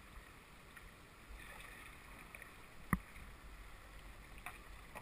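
Faint running water of a small river around a kayak, with a low rumble, broken by a single sharp knock about three seconds in.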